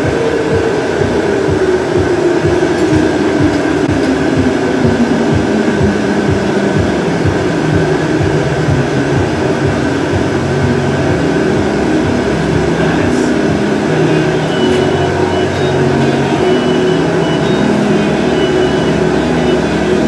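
Glass studio machinery running with a steady mechanical rumble. A pulsing hum falls in pitch over about the first eight seconds as its pulses slow, then levels off into a steady low hum.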